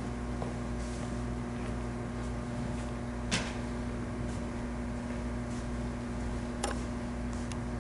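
Steady electrical hum over room tone, with two short clicks, the louder about three seconds in and another about six and a half seconds in.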